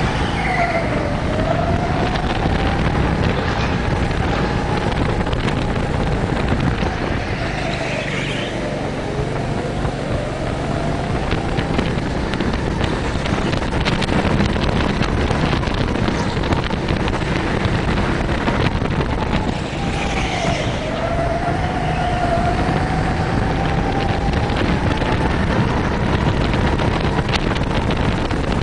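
Go-kart heard from the driver's seat, its engine pitch dropping going into corners and climbing again on the straights several times. Rumble and wind noise on the microphone run underneath.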